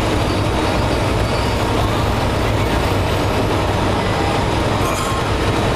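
Steady drone of a semi-truck's diesel engine with tire and road noise, heard from inside the cab while cruising at highway speed.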